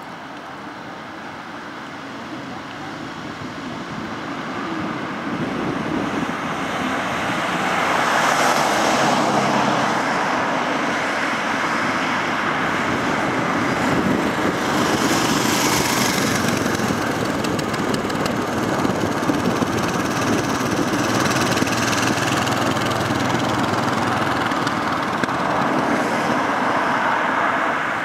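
Road and traffic noise of a car driving on city streets, growing louder over the first several seconds as the car gets moving, then holding steady with a few swells as other vehicles go by.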